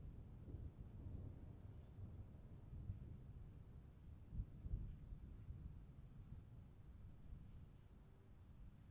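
Crickets chirring steadily in a high, finely pulsing trill over a faint low storm rumble that swells briefly about four and a half seconds in and then slowly fades.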